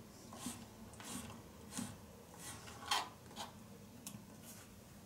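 Knife cutting a lemon into small pieces: about eight faint, irregularly spaced cuts.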